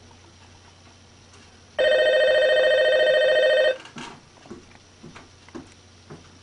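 A telephone ringing: one electronic ring about two seconds long, starting about two seconds in, followed by a few faint clicks.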